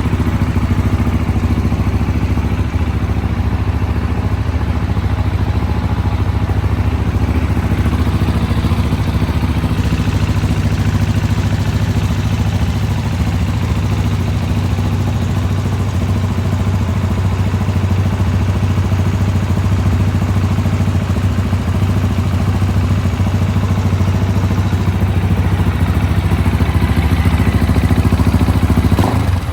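Husqvarna Vitpilen 701's single-cylinder engine idling steadily.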